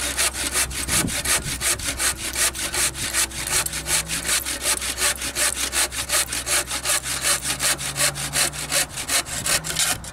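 Handsaw cutting through a wooden board with quick, even rasping strokes, about four a second. The sawing stops abruptly at the very end as the board is cut through.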